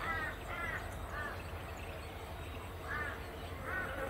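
A bird calling: about five short arched calls, three in the first second and two more near the end, over a steady low rumble.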